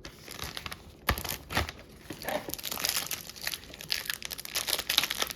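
Crinkling and tearing of a hockey card pack's wrapper as it is ripped open and handled, irregular crackling with a sharper rip about a second in.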